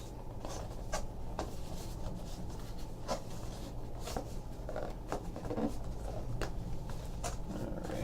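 Hands opening a box and its packaging: light rustling and scattered small clicks of cardboard and wrapping being handled, over a steady low room hum.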